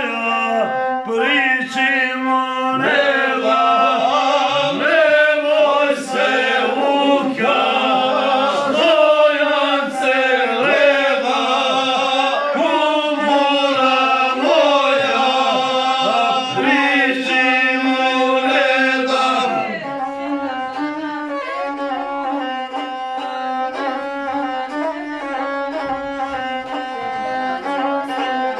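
A man sings a traditional Serbian folk song (izvorna) in a full, loud voice over an instrument holding long steady notes. The singing stops about two-thirds of the way in, and the instrument plays on alone.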